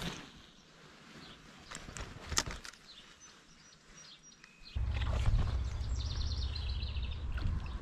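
A spinning rod and reel handled during a cast: scattered faint clicks and taps. Then, about two-thirds of the way in, a steady low rumble starts suddenly, with rapid ticking, as the reel handle is cranked to bring the lure back.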